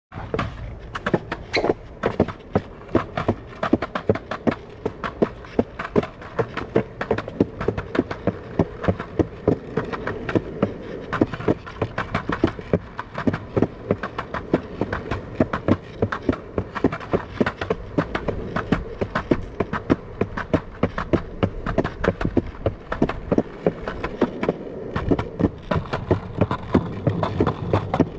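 Skateboard wheels rolling on a concrete sidewalk: a steady low rumble with a rapid, uneven run of sharp clicks and taps, several a second.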